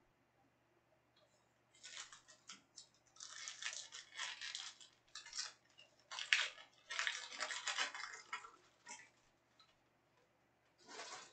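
Rustling and scraping of trading cards and their packaging being handled, in a run of irregular bursts over several seconds and once more near the end.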